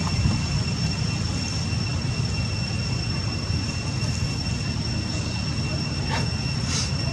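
Steady low rumble with a constant high-pitched whine over it, and a faint short high call near the end.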